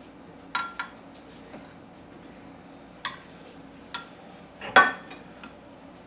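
Metal spatula clinking and scraping against a glass baking dish while working a baked pita sandwich loose, in a few sharp clinks, the loudest a little under five seconds in.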